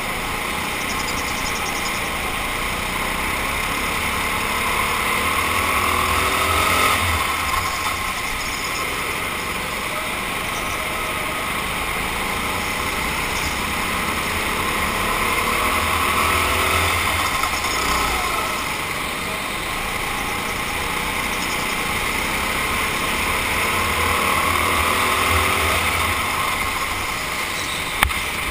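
Racing kart engines at race pace, heard from the driver's seat, rising and falling in pitch and loudness through the laps, with other karts running close by. A single sharp knock near the end.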